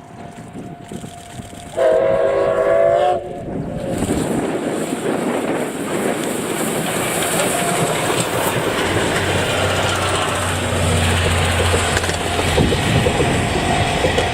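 Steam whistle of the C57-class steam locomotive C57 180 sounding once, loud, for about a second and a half. It is followed by the train approaching and passing, a steady rumble with wheel clatter over the rails that grows louder.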